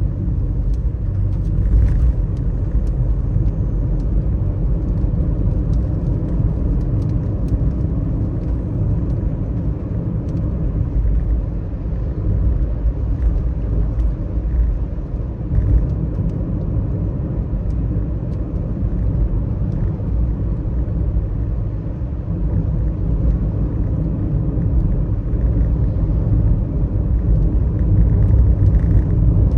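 A car driving in the rain: a steady low rumble of engine and tyres on the wet road, with faint scattered ticks over it, growing a little louder near the end.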